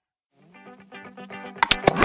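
Background music that starts about half a second in after a moment of silence, with sustained notes and a few sharp percussive hits near the end.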